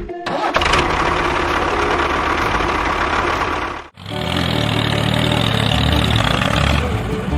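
A motor or engine running steadily, in two stretches split by a sudden brief break about four seconds in; the second stretch is lower and more rumbling.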